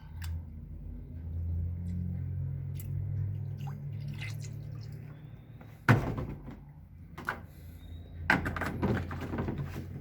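Electrolux LTC10 washing machine with a steady low hum, then a sharp thunk about six seconds in, another knock, and a run of knocks and rattles near the end.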